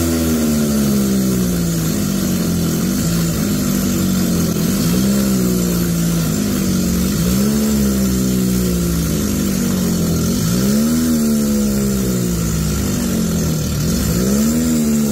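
Diesel tractor engines labouring under heavy load, their pitch rising and falling about every two seconds as the throttles are worked, while a Mahindra 575 DI and a second tractor pull a sand-laden trolley stuck in soft ground, the 575 DI's rear wheel spinning in the dirt.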